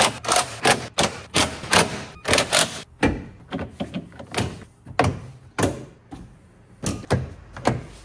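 Hard plastic trim panels around a Tesla Model X's frunk tub being pressed and knocked into place: an irregular run of sharp plastic clicks and knocks as the clips seat, densest in the first three seconds, then more spread out.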